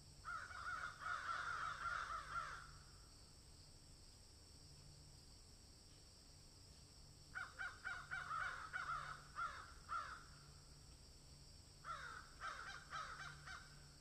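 Crows cawing in three bouts of rapid, harsh calls: the first starts just after the beginning, the second about seven seconds in, the third about twelve seconds in.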